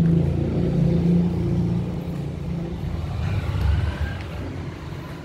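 A motor vehicle engine running with a low, steady hum. It is loudest at first and grows fainter over the last few seconds.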